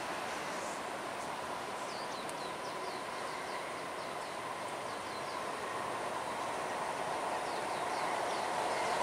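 Kawasaki-built C151 metro train running on an elevated viaduct, its running noise and a faint whine growing steadily louder as it approaches. Birds chirp repeatedly over it.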